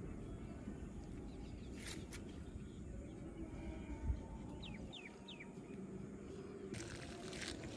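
Quiet outdoor ambience with a steady low rumble, in which a bird gives three short falling calls about two-thirds of the way through, just after a soft thump.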